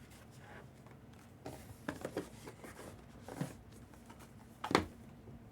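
Quiet handling noises: a few short rustles and scrapes, with one sharper, louder rustle or knock near the end.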